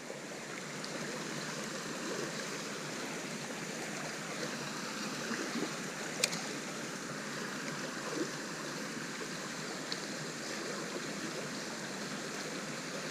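Creek water flowing steadily: an even rush of running water, with a single sharp click about six seconds in.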